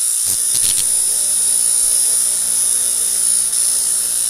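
Electrical zapping sound effect: a steady, loud buzzing hiss over a low hum, with a few crackles in the first second.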